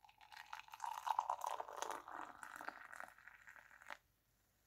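Coffee being poured into a glass of whisked cream: a steady pour full of small crackles, which stops abruptly about four seconds in.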